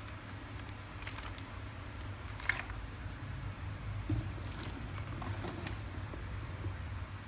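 A few light clicks and small handling knocks, scattered over a steady low hum.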